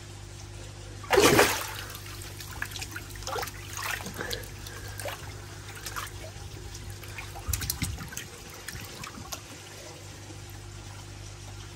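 Water splashing in a shallow koi bowl as a large koi moves and is handled for measuring. One loud splash comes about a second in, followed by smaller irregular splashes and trickling that die away after about nine seconds.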